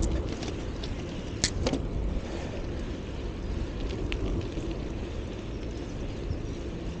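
Riding noise of a bicycle: a steady low rumble of wind and rolling tyres, with a few sharp clicks, the loudest about a second and a half in.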